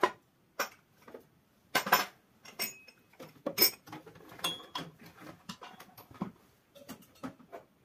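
Dishes and small containers clinking and knocking as they are handled and sorted in plastic crates: a string of separate clinks and clatters, a few ringing briefly.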